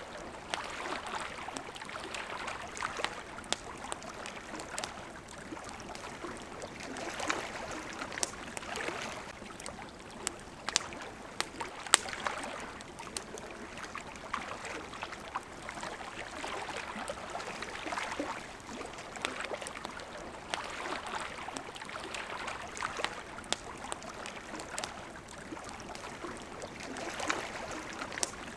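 Water lapping and flowing in gentle swells every few seconds, with a campfire crackling in sharp pops throughout, one louder pop about twelve seconds in.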